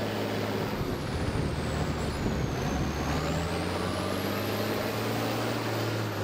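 Diesel engine of a Dresser wheel loader running steadily, a low drone; its note rises slightly about two seconds in, then holds.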